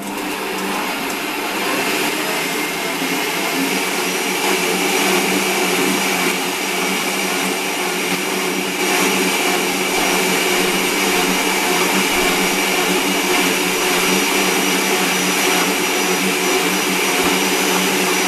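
Electric stand mixer motor switched on, running up to speed over about two seconds, then running steadily with a hum and a high whine as it beats the biscuit mixture in its stainless steel bowl.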